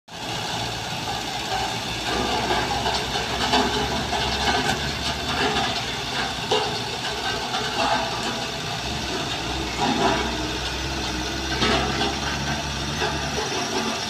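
Single-drum road roller's diesel engine running as it drives over and compacts loose fill: a steady low rumble with occasional sharper knocks.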